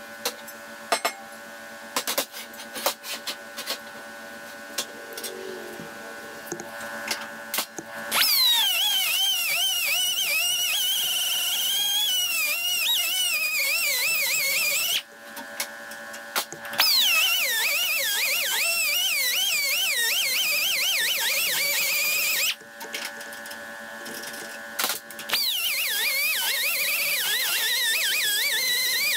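Handheld pneumatic drill boring into the end of a metal tube clamped in a vise. It gives a high whine whose pitch wavers as the bit loads up. It runs in three spells: starting about eight seconds in, pausing briefly twice, and running again near the end, after a few seconds of clicks while the tool is set up.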